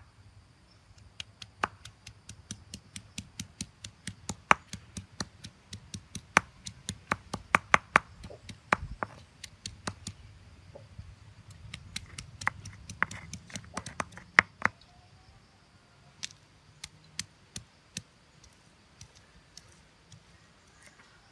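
Hand-held stone pounding garlic, ginger and turmeric on a stone boulder: sharp stone-on-stone knocks, several a second, thinning to occasional knocks after about fifteen seconds.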